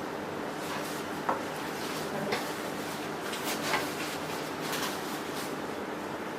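A few light knocks and scrapes of kitchen utensils against cookware over a steady hiss.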